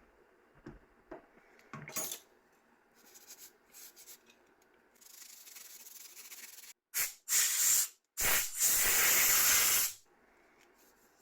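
Spray can hissing onto a phone circuit board to clean it: a few short bursts, then one longer burst of about a second and a half.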